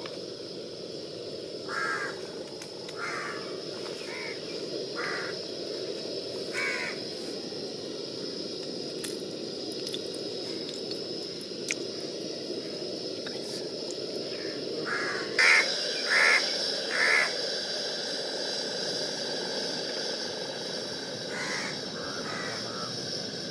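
Crows cawing: single harsh caws repeated at irregular intervals, the loudest three in quick succession about two-thirds through. A steady low background noise runs underneath.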